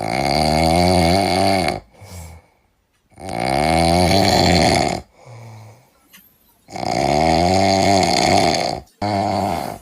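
A man snoring loudly: three long snores of about two seconds each, roughly three seconds apart, with shorter, quieter breath sounds between them.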